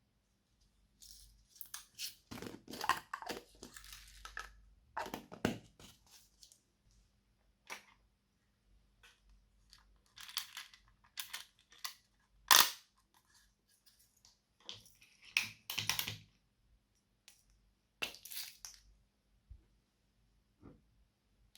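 Hands working slime: irregular sticky crackles, pops and squishes come in clusters with short quiet gaps, one sharper pop about halfway through.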